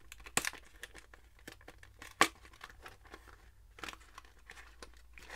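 Lure packaging being torn open and crinkled by hand: scattered rustling with a few sharp clicks, the loudest about two seconds in.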